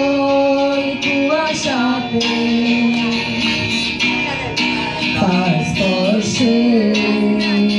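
Women singing a song into handheld microphones, holding long notes, accompanied by a strummed acoustic guitar.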